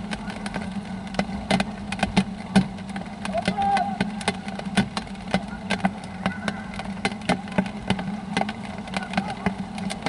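Rain tapping irregularly, dozens of small sharp ticks close to the microphone, over a steady low hum. A distant voice calls out briefly about three and a half seconds in.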